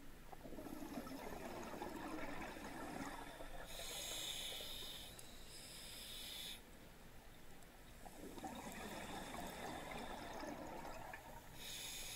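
Scuba diver breathing through a regulator underwater. About two breath cycles, each a hiss from the regulator and a burble of exhaled bubbles.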